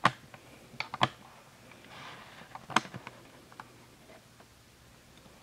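Scattered light clicks and taps, the sharpest at the start, about a second in and near three seconds, with a soft rustle around two seconds. The clicks thin out and it goes quieter after about four seconds.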